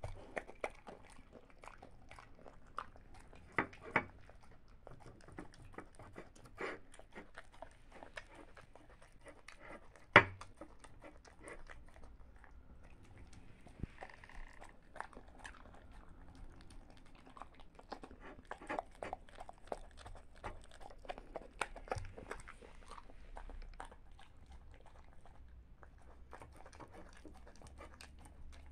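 A dog eating pieces of rice and carrot off a wooden table and a china saucer: irregular crunching, chewing and small clicks of teeth and tongue, licking the saucer near the end. One sharp knock about ten seconds in is the loudest sound.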